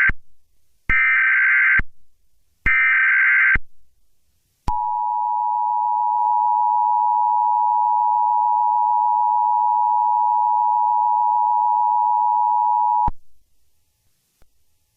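Emergency Alert System signal: two short bursts of SAME header data about a second apart, then the steady two-tone EAS attention signal held for about eight seconds and cutting off abruptly.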